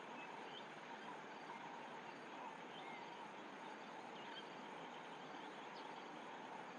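Faint, steady outdoor background hiss with a few faint, short bird chirps scattered through it.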